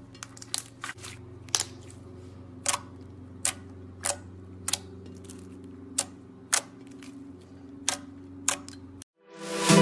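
Slime being handled, making sharp clicking pops about once a second, some in quick pairs, over a low steady hum. Near the end the sound cuts out and loud guitar music starts.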